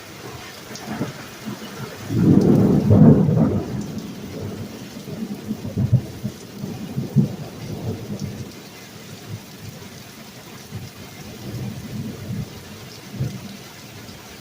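Thunder rumbling, loudest about two seconds in and rolling on in smaller rumbles for several more seconds, over steady pouring rain.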